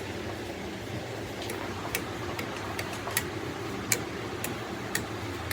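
About ten sharp, irregularly spaced clicks or light taps over a steady low hum.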